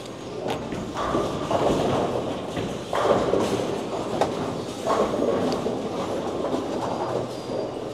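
Bowling-centre din: bowling balls rolling down the wooden lanes, with several sharp crashes of pins being struck on nearby lanes.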